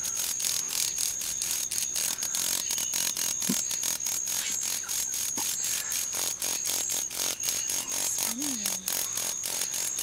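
High, ringing insect trill: a steady high tone pulsing rapidly and evenly, about five times a second.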